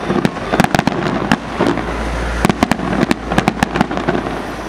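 Aerial fireworks shells bursting in rapid clusters of sharp bangs over a low rumble. The bangs thin out near the end.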